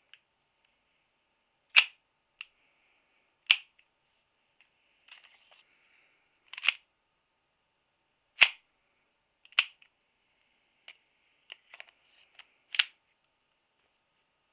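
Airsoft Colt Lawman revolver being worked: six sharp, loud clicks or snaps a second or two apart, with fainter mechanical clicks in between.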